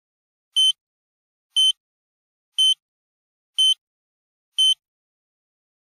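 Countdown beeps: five short, identical electronic beeps, one each second, marking a count from five down to one.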